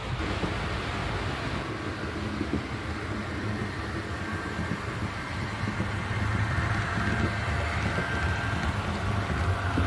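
H0-scale model trains running on the layout: a steady electric motor hum with a faint high whine, and wheels rolling over the rails. It gets louder about six seconds in as a model steam locomotive comes close.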